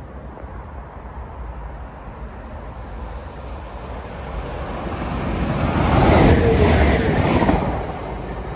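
Class 197 diesel multiple unit approaching and passing close by, its engine and wheel noise building from a low rumble to a peak about six to seven seconds in. There is some wind on the microphone.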